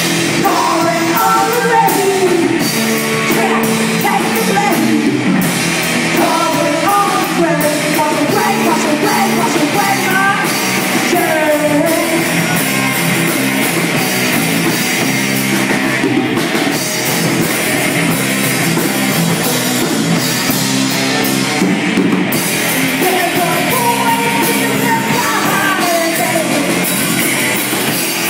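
Live rock band playing: a woman's lead vocal over electric bass, electric guitar and drum kit. The singing pauses for roughly ten seconds in the middle while the instruments carry on, then returns near the end.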